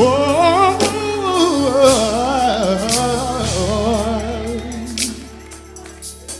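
Gospel singing: one voice slides up into a long melismatic "whoa" with heavy vibrato, over sustained low chords and occasional drum hits. The voice drops out about three-quarters of the way through, leaving the quieter accompaniment.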